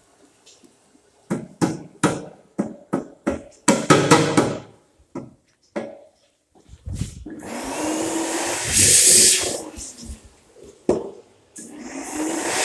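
Crocodile hand dryer blowing in stops and starts: a string of short blasts at first, then a run of about three seconds with a faint rising motor whine. It cuts out and starts again near the end, its sensor repeatedly cutting the airflow.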